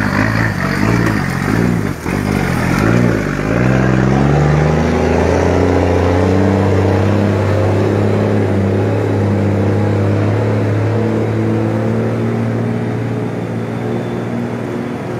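Heavy diesel truck engine running. For the first few seconds its note wavers up and down about twice a second, then it settles into a steady, even drone that fades slightly near the end.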